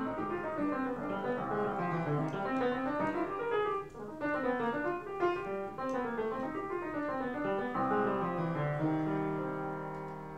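Upright piano played solo: quick rippling broken-chord runs that rise and fall, then a chord struck about eight seconds in that is held and slowly fades.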